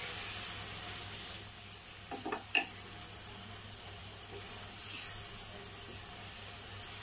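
Hilsa fish and spice paste sizzling in a pot as the fish is braised in its masala, the sizzle fading then swelling again about five seconds in. A few light knocks of a wooden spatula against the pot come about two seconds in.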